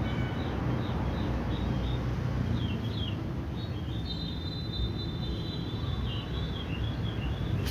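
Small birds chirping repeatedly in the background, with one held high whistle-like note in the middle, over a steady low rumble of ambient noise.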